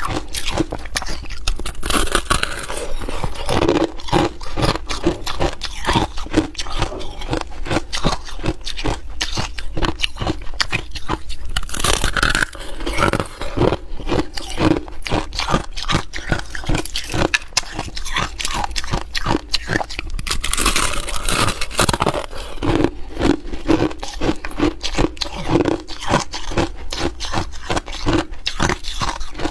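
Ice being bitten and chewed close to the microphone: a dense, rapid run of sharp crunches, with a few louder, longer crunching bites, around 2, 12 and 21 seconds in.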